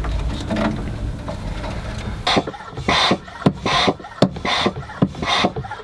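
Oil extractor pump being worked in short rasping strokes, about two a second, drawing the old engine oil out for an oil change; a low steady rumble comes before the strokes start.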